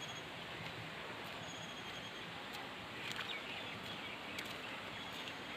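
Steady rushing of a mountain stream, with a few faint bird chirps over it.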